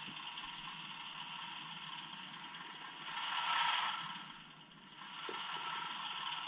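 Simulated engine sound from a Beier SFR-1 sound module playing through a small loudspeaker, running steadily. About three seconds in it is turned up to its loudest, then turned down almost to silence, then back up again, as the transmitter's volume knob is tried out.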